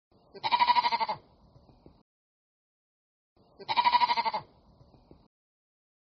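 An animal bleating twice, about three seconds apart; each call lasts well under a second and has a fast quavering pulse.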